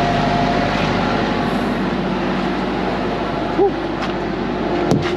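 A tire hammer strikes a truck trailer tire twice near the end, giving sharp knocks that serve as a check of the tire's inflation by sound. Under them a truck runs steadily.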